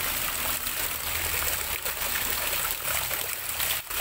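Rainwater gushing out of drainage holes in a stone retaining wall and splashing onto wet paving: a steady rush and splatter of running water, dipping briefly just before the end. The water is runoff forced out of the wall's foundations by heavy rain.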